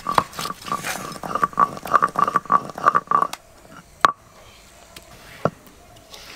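Rapid, rhythmic scraping and cutting strokes of food being prepared by hand, fading out after about three seconds, followed by a single sharp knock about four seconds in.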